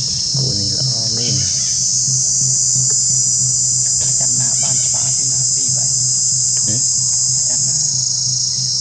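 Steady, high-pitched insect chorus of cicadas or crickets droning without a break, with a low steady hum underneath. Faint voices are heard briefly about a second in.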